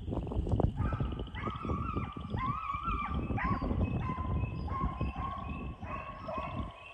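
Hunting hounds baying on a deer's trail: a string of long, drawn-out bawls, some at different pitches overlapping, from more than one dog, over a low rumble.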